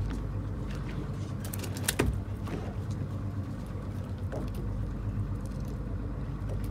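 Boat motor idling with a steady low hum, and one sharp click about two seconds in.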